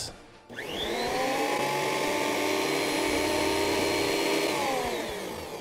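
Craftsman benchtop thickness planer switched on with no board in it. The motor and cutterhead whine up to speed in a fraction of a second, run steadily for about four seconds, then are switched off and spin down with a falling whine near the end.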